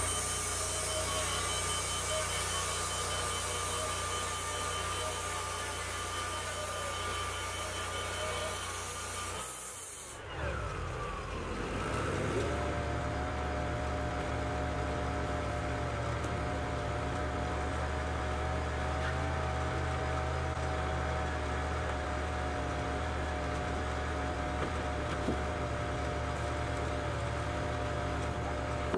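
Wood-Mizer hydraulic portable band sawmill cutting through an ash log, its engine working under load with the hiss of the blade in the wood. About ten seconds in the cut ends and the engine falls away, then settles into a steady lower running while the saw head is back at the end of the log.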